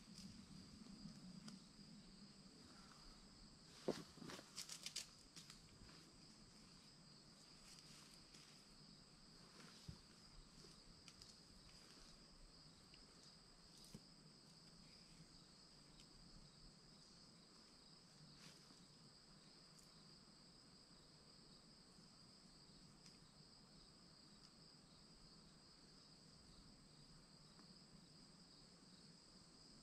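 Faint, steady high-pitched insect chorus. A few soft clicks and rustles in the first five seconds, the sharpest about four seconds in, come from a hammock suspension strap being handled at the tree.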